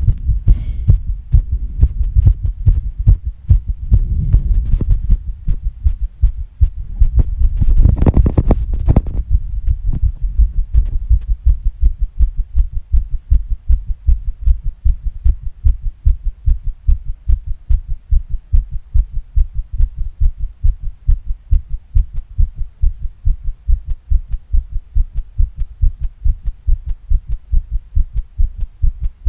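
A woman's heartbeat, fast and regular, thumping steadily throughout. Heavy breaths come in over it, a soft one about four seconds in and a loud one about eight seconds in, after which only the heartbeat is heard.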